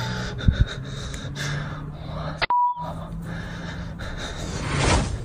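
A short electronic beep about halfway through, with the sound cutting out around it, over a low steady hum.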